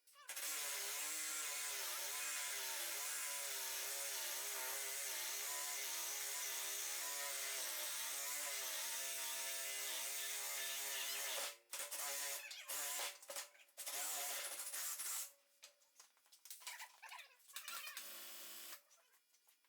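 A small electric motor runs steadily for about eleven seconds with a slightly wavering pitch, then cuts out and runs in several short bursts.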